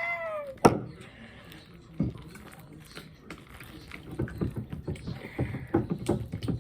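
Wet, sticky squishing and smacking of homemade slime being worked by hand, growing busier after a few seconds, with a sharp click early on and a knock about two seconds in.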